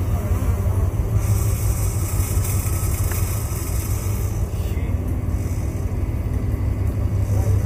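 Steady low rumble of a sportfishing boat's engines running, with a hiss that comes and goes.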